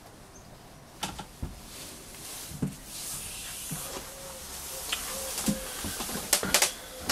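Scattered light knocks and bumps of a person moving about a small boat's cabin, over a faint hiss that grows a little from about three seconds in.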